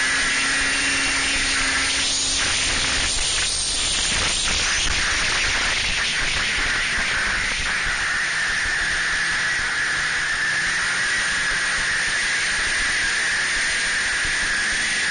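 Snowmobile riding at speed: a steady rushing hiss of wind over the microphone mixed with the machine's running noise and a constant high whine. A run of brief knocks comes between about two and eight seconds in.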